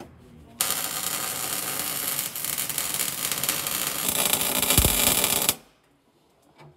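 Welding arc burning steadily for about five seconds and then cutting off suddenly, as a 12-gauge Hardox 450 steel wear-plate liner is plug welded to a combine feeder house floor.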